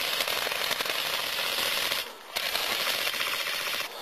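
Sustained automatic gunfire: a dense rattle of rapid shots. It pauses briefly about halfway through, resumes, then stops just before the end.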